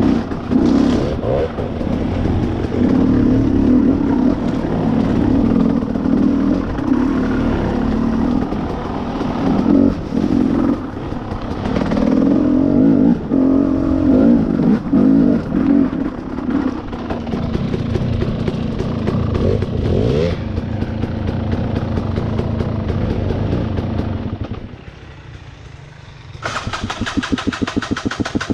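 Two-stroke dirt bike engine under riding load, its revs rising and falling continually. Near the end it drops away briefly, then comes back as a fast, even pulsing.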